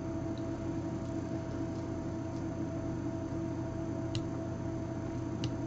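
Room tone: a steady hum with a low even hiss, and two faint ticks about four and five and a half seconds in.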